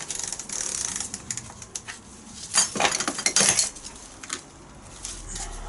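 Steel tools clinking and clattering as a hub puller is taken off a classic Mini's rear brake drum and set down on the floor, with the loudest cluster of clanks a little past the middle.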